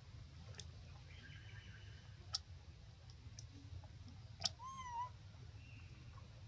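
A baby long-tailed macaque gives one short squeaky cry, rising then falling, a little over two thirds of the way in, just after a sharp click. A few fainter clicks come earlier.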